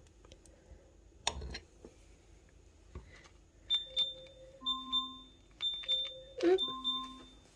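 An Alexa smart speaker sounding its alert: a repeating electronic chime of short high pips and steady lower tones, starting about halfway through. A brief knock about a second in.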